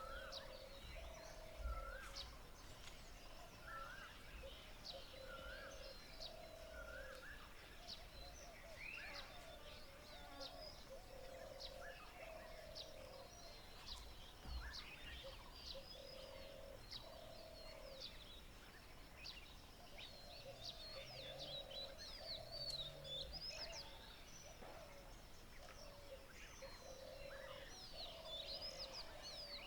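Morning birdsong from several birds: a lower call repeats about every two seconds over many quick, high chirps. Two low bumps, about 2 and 14 seconds in.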